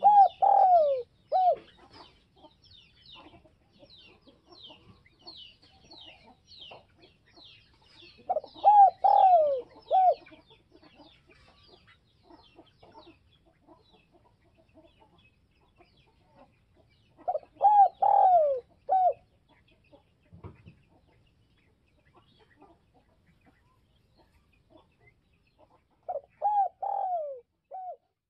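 Caged spotted dove cooing: four short phrases about nine seconds apart, each of three or four coos that fall in pitch. This is the call that a decoy dove gives to lure wild doves. Faint high chirps run through the first half.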